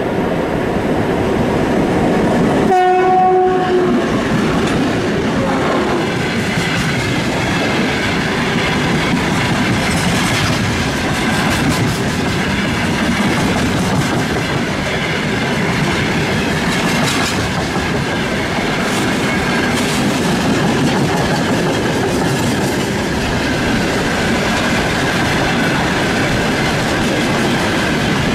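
Coal freight train rolling past at speed: a steady rumble of wagons with the clickety-clack of wheels over rail joints. A locomotive horn sounds once, for about a second, about three seconds in.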